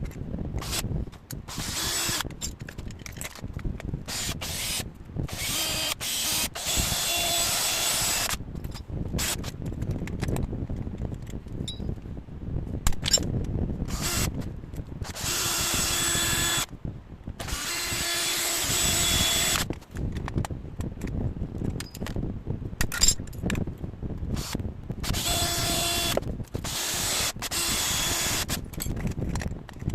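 Electric power tool run in repeated short spells of one to two seconds each, starting and stopping several times, with handling rattles in between.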